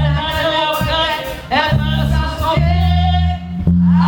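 Gospel music: voices singing over a keyboard and a steady bass line.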